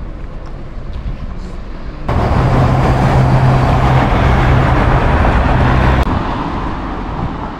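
A vehicle engine running with a steady low hum under loud noise, which comes in suddenly about two seconds in and falls away about six seconds in.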